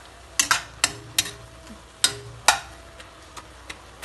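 Steel spatula scraping and knocking against a stainless steel kadai as a thick onion-tomato masala is stirred. About six sharp strikes come in the first two and a half seconds, then a few fainter ones, over a low sizzle of the masala cooking in water without oil.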